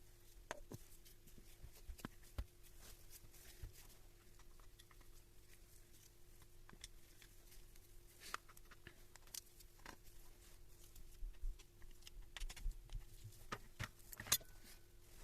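Scattered faint clicks and knocks, more frequent in the second half with one sharper click near the end, over a faint steady hum.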